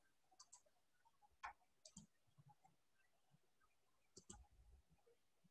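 Near silence broken by a few faint computer-mouse clicks, the loudest about a second and a half in, and a quick pair of clicks near the end.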